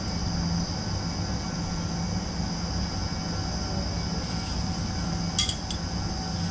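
Steady machine hum, even and unbroken, with a brief sharp click about five and a half seconds in.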